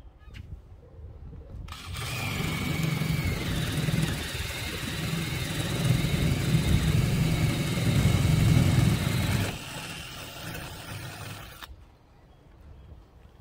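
Cordless drill with a spade bit boring a hole up through fibre-cement soffit board. The motor whines at full speed for about eight seconds, runs on more quietly for about two more, then stops near the end.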